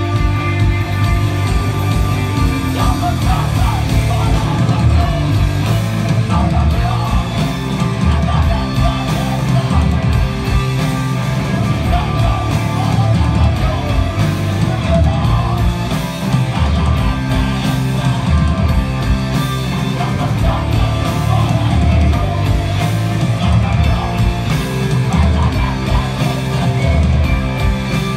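Live rock band playing loud and full: distorted electric guitars, bass guitar and drum kit, with a man singing into a microphone over it.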